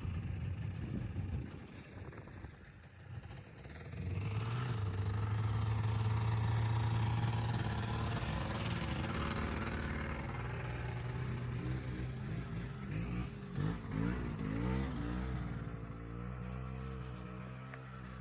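Two-stroke Yamaha snowmobile engine running: it drops back about a second and a half in, then climbs to a loud steady run from about four seconds, and around twelve to sixteen seconds its pitch swings up and down as the throttle is worked, before easing off.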